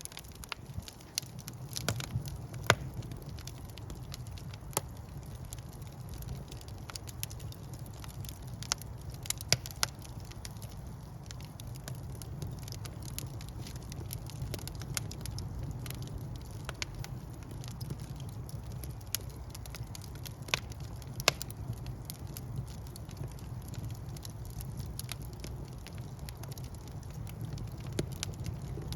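Wood fire burning in a fireplace: a steady low rumble of the flames with irregular sharp crackles and pops from the logs, a few louder pops standing out.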